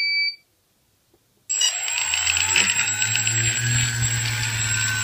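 A single electronic beep from the quadcopter's electronics ends just after the start. About a second and a half in, the quadcopter's 2212 920kv brushless motors, driven by 30A ESCs, spin up and run steadily under test, with a constant high whine over a low hum.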